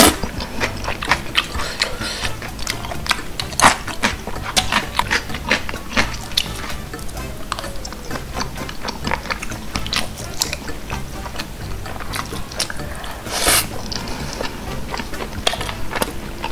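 Close-miked chewing of crispy kkanpunggi, fried chicken in a sweet-spicy sauce: a steady run of small wet crunches and mouth clicks, with a sharp click at the start.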